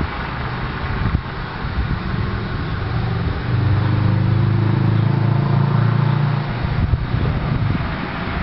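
A car driving past close by: a low, steady engine hum that comes in about two seconds in and fades near the end.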